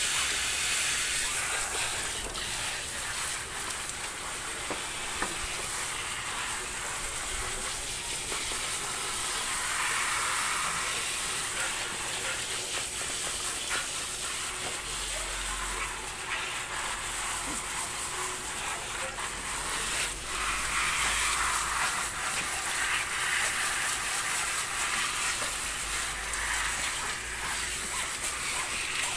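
Water hissing from a hose spray nozzle, spraying steadily onto a wet dog's coat and a plastic grate.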